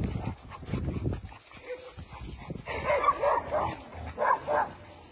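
Dogs barking and yipping in short, high calls: a run of them just past halfway through and a couple more near the end, after low rustling in the first second.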